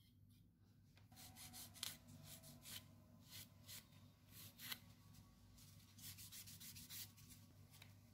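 Faint, irregular rubbing strokes against an acrylic fingernail, starting about a second in, over a low steady hum.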